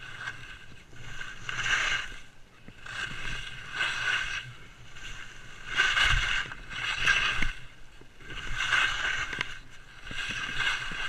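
Skis turning down a snowy slope, a scraping swish of the edges through the snow on each turn, about one every second and a half.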